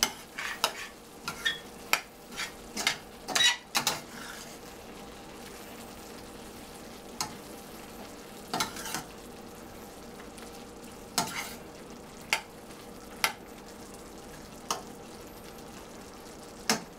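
Sliced zucchini and vegetables sizzling in a stainless steel sauté pan while a spatula stirs them, knocking and scraping against the pan. The knocks come in a quick run over the first few seconds, then only now and then over the steady sizzle.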